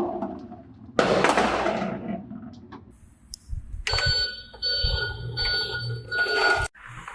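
A sudden rushing noise about a second in that fades away, then an electronic bell-like ringing tone with a pulsing beat for nearly three seconds that cuts off abruptly.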